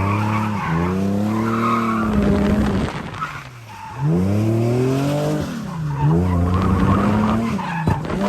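Nissan 350Z's V6 engine revving up and down through a drift, with tyres squealing and skidding. The revs climb, fall away about three seconds in, then climb again and dip once more near the end.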